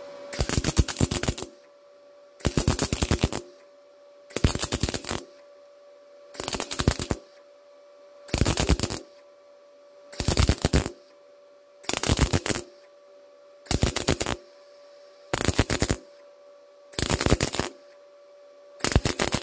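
MIG welder laying a lap weld on sheet steel in short dabs, "dab, dab, dab": eleven bursts of arc, each a rapid run of crackles lasting under a second, about every two seconds. The welding is done in stitches like this to control the heat and keep it from melting through. A faint steady hum runs underneath.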